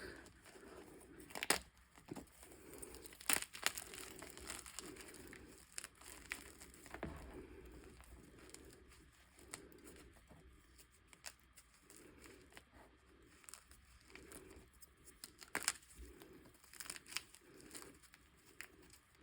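Chalk being crushed and crumbled, a quiet irregular run of crackles and crumbling with a few louder sharp cracks.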